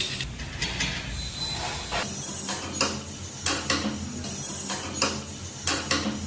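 Open-end wrench working a nut onto a bolt through rusty square steel tubing: a string of irregular sharp metal clicks as the wrench turns and is reset on the nut, over a low steady hum.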